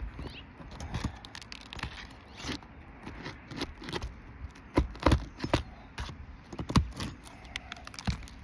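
Roof snake prying and scraping under brittle, delaminated asphalt shingles: irregular scrapes, cracks and clicks, the loudest about five seconds in and again near seven seconds.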